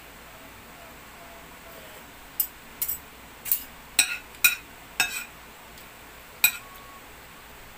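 Metal fork and spoon clinking against a ceramic plate while eating, a string of sharp clinks beginning about two seconds in and ending about two-thirds of the way through.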